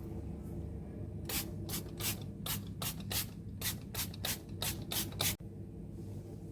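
Trigger spray bottle of multipurpose cleaner pumped rapidly, about a dozen quick hissing squirts, roughly three a second.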